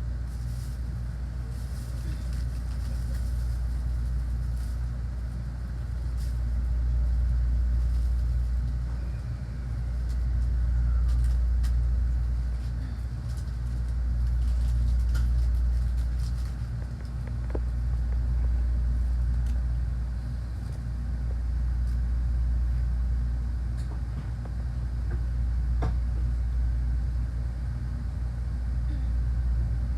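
Shinkansen train pulling out of the platform: a low rumble that swells and eases every three to four seconds.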